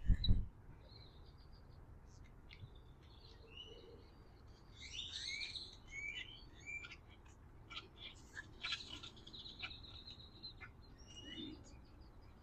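Small birds chirping and singing in quick, varied, high phrases, busiest about five seconds in and again around nine seconds. A dull thump right at the start.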